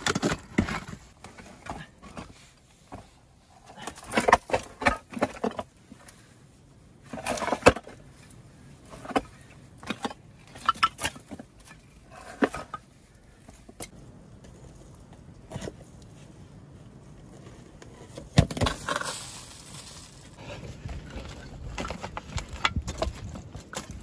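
Large stones being set down and shifted on a floor of gravel and broken clay roof tiles: scattered knocks, scrapes and clinks of rock on tile shards, in bursts a few seconds apart.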